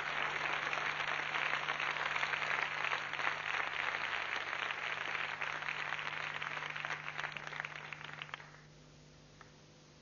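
Studio audience applauding, a dense patter of clapping that holds steady and dies away about eight seconds in.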